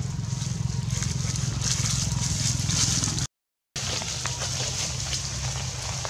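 Steady outdoor background noise, a low rumble with a hiss over it, broken by a brief total dropout a little past halfway.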